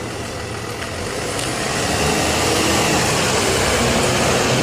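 A bus engine running, growing louder over the first two seconds and then holding steady before it cuts off abruptly at the very end.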